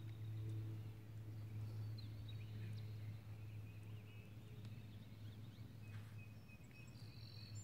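Quiet outdoor ambience: a steady low hum under a few faint, thin, high bird calls.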